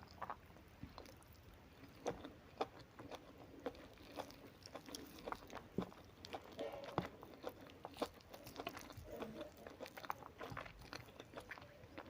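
A person chewing and biting food close to the microphone, with irregular small crunches and wet clicks.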